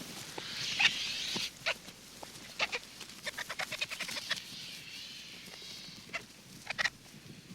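Jungle ambience: birds and other animals calling in short, sharp chirps over a steady high hiss, with a quick run of chirps a few seconds in.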